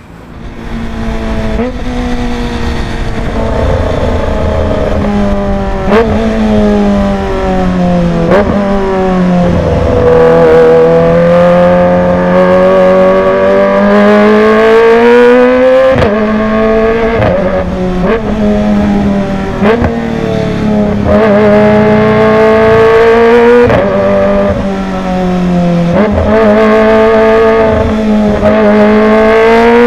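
Kawasaki ZX-25R's 250 cc inline-four running loud through a Villan Z1 underbelly aftermarket exhaust as it is ridden. The engine note rises and falls slowly with the throttle, broken by short sharp clicks every few seconds.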